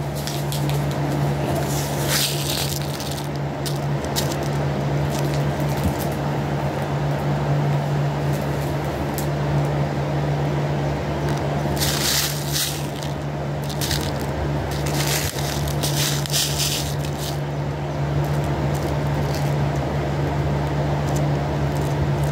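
A fan running steadily in the background, with bursts of crinkling and rustling as plastic packaging is handled, the loudest near the middle and again a few seconds later.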